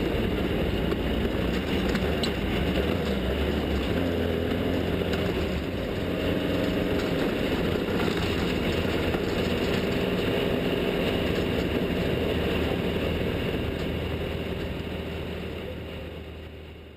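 Off-road desert race vehicle's engine running steadily with a deep hum, fading out near the end.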